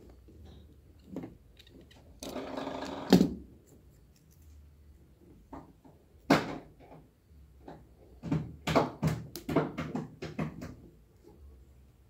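Cable stripper rasping around a network cable's outer jacket for about a second, ending in a sharp click. Later a single click, then a quick run of clicks and rustles as the bare twisted pairs are handled.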